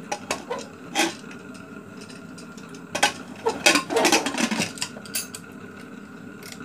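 Aluminium pressure cooker lid being fitted into the pot and locked shut: a few metal clinks and a knock about a second in, then a run of clanking and scraping metal from about three seconds in as the lid is worked into place.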